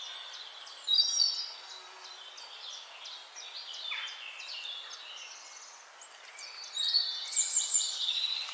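Oriental magpie-robin singing: a varied run of high whistled and chirped notes. The phrases are loudest in the first second and a half and again near the end, with quieter scattered notes in between.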